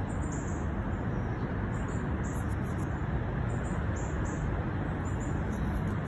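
Wind buffeting the microphone: a steady low rumble, with faint high bird chirps now and then.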